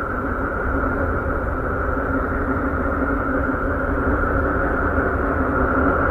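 Steady, unchanging drone of several held tones over a low rumble, presented as the sound of the planet Uranus.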